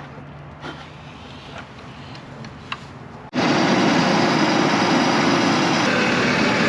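Faint low hum with a few light clicks, then, about three seconds in, an abrupt switch to an engine running loudly and steadily close by.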